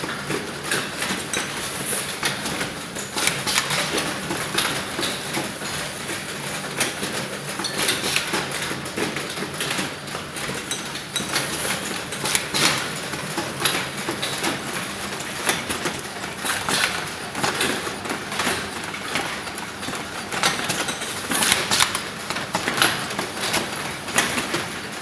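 Ribbon bow-making machine (LC-MS6001) running: a continuous mechanical clatter of rapid clicks and knocks over a constant high hiss.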